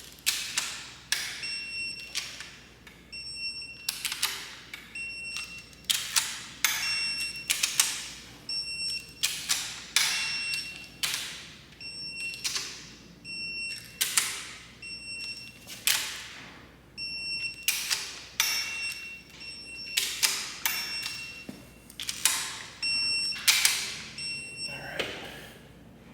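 Click-type torque wrench clicking as it reaches torque on each cylinder head cap screw of a Cummins 6BT in turn. Each is a sharp metallic click with a short ring, repeating roughly every one to two seconds.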